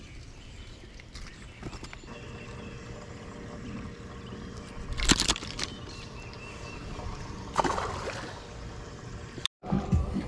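Water sloshing and gurgling around a bass boat, with two short splashes about five and seven and a half seconds in.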